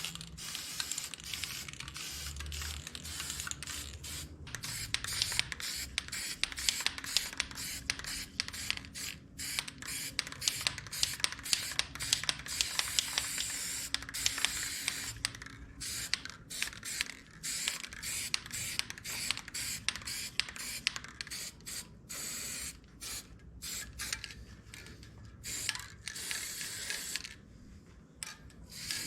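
A threading die being run down bolt threads to clean them up: a continuous rasping scrape broken by rapid clicks, with sharper clicks about a third of the way in.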